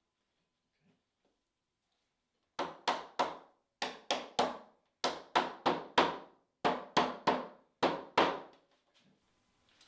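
A mallet knocking on the corner of a walnut box to seat freshly glued hand-cut dovetail joints. About sixteen sharp knocks come in quick runs of two or three, starting between two and three seconds in.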